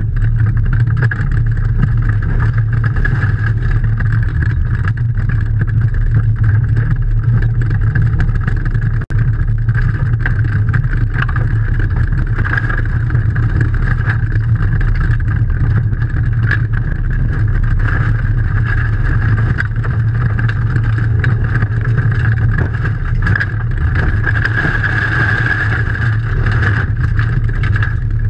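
Rally car's engine running hard under load, heard from inside the stripped cabin, with the rumble of tyres on a gravel stage. The sound stays loud and steady, with a very short dropout about nine seconds in.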